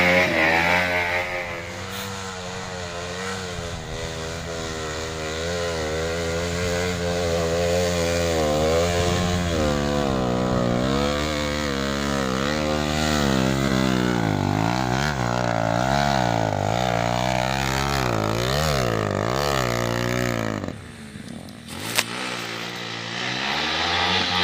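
Off-road motorcycle engine revving up and down over and over, its pitch rising and falling about once a second. Near the end it drops away briefly, there is one sharp click, and then the engine picks up again.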